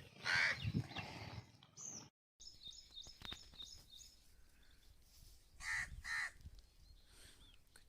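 A crow cawing: one loud caw right at the start and two more caws about half a second apart later on. Small birds chirp rapidly in between.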